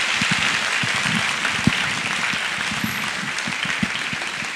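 Audience applauding, steady at first and easing slightly towards the end.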